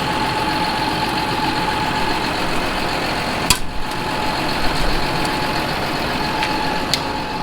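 John Deere 7930 tractor's diesel engine idling steadily, with a steady whine over it and one sharp click about three and a half seconds in.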